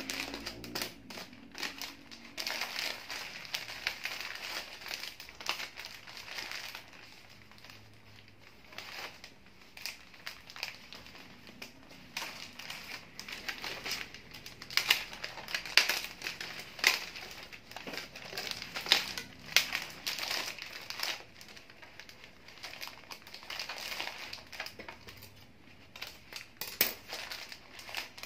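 Sheets of bouquet wrapping paper crinkling and rustling irregularly as hands gather and fold them around the stems, with a quieter patch about a third of the way in and louder, sharper crackles in the middle stretch while the bouquet is lifted and handled.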